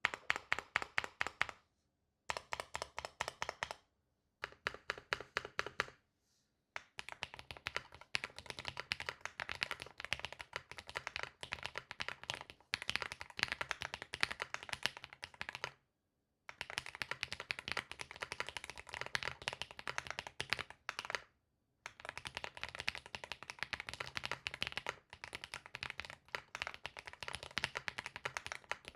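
Rainy 75 mechanical keyboard fitted with Gateron Type R switches being typed on. In the first few seconds there are short runs of quick, evenly spaced keystrokes with brief pauses between them. After that come long stretches of continuous typing, broken by a couple of short pauses.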